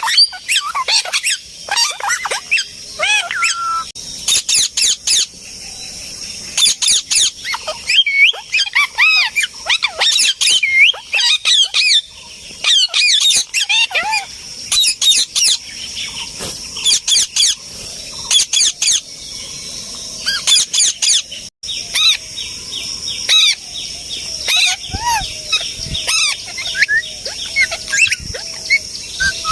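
A flock of parrots calling, with many short chirps and gliding whistles overlapping in quick succession. A steady high hiss runs underneath.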